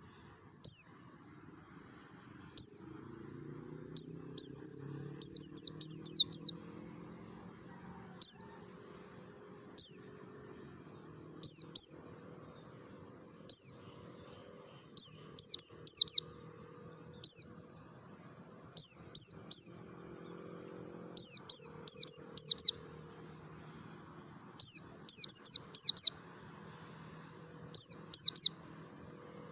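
Pleci dakun white-eye calling in its wild style: short, high, downward-sweeping chirps, single or in quick runs of two to five, repeated every second or two.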